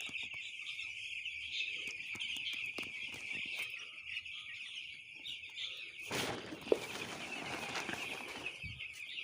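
A flock of six-day-old broiler chicks peeping in a steady, high, dense chorus. About six seconds in, a rustling, scraping noise cuts across it for a couple of seconds.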